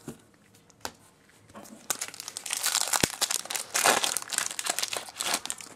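Foil wrapper of a Pokémon booster pack being torn open and crumpled by hand, a dense crackling rustle that starts about a second and a half in, after a couple of small clicks.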